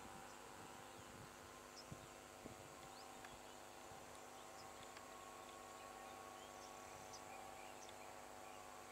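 Near silence: faint open-air rural ambience with a steady low hum, a few tiny high chirps of small birds and insects, and a couple of soft ticks early on.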